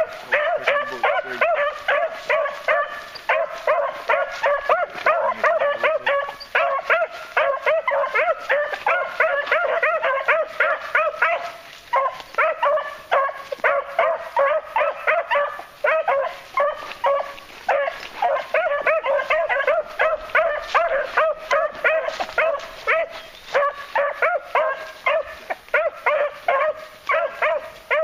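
Beagles baying while trailing: a rapid, almost unbroken run of short, high barks that overlap, with only brief gaps around the middle.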